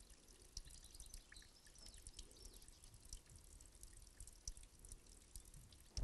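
Near silence, with faint irregular drips of water from a borehole outflow pipe.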